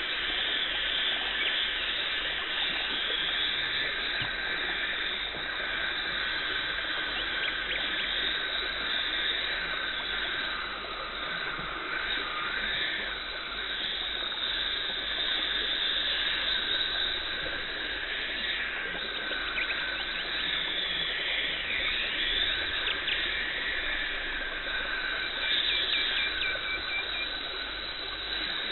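Dental cleaning instruments running during tartar removal: an ultrasonic scaler and suction making a steady, high hiss that swells and fades, with a few faint clicks and a brief thin whistle near the end.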